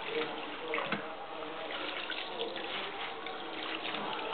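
Water sloshing and trickling in a stainless-steel kitchen sink as hands rub and squeeze puha leaves in it, washing the greens, with small irregular splashes.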